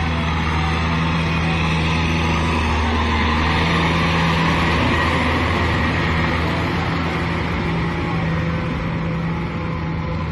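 Kubota M6040SU tractor's four-cylinder diesel engine running steadily under load as it drives through deep, wet rice-field mud.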